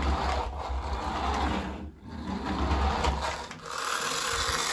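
Toy remote-control car's small electric motor and plastic gearbox whirring as it drives, cutting out briefly about two seconds in and starting again.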